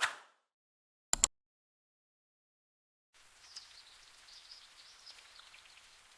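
Two sharp clicks about a second in, the loudest sounds here, after a brief decaying swish at the very start. From about three seconds in, faint steady rain with high bird chirps over it.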